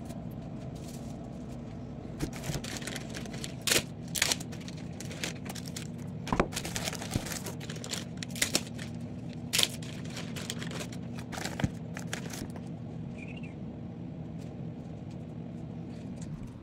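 Clear plastic packaging bags crinkling and crackling in irregular bursts as they are handled and opened, over a steady low hum. The crinkling dies away a few seconds before the end.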